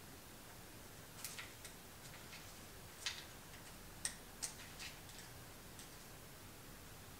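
Faint, irregular metallic clicks of a thin metal tool tapping and scraping on a freshly installed Keysert thread insert in the SR20DET's aluminium cylinder head, checking whether the insert sits flush. About ten light ticks come in uneven clusters, the sharpest about three and four seconds in.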